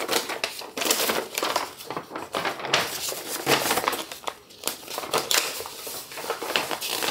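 Sheets of printed paper rustling and crinkling as they are handled and leafed through, in a quick run of separate rustles.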